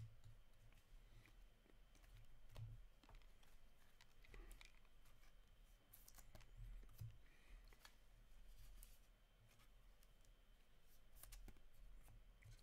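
Faint handling of hockey trading cards: scattered light clicks and card-on-card taps as a stack is sorted and squared, over quiet room tone.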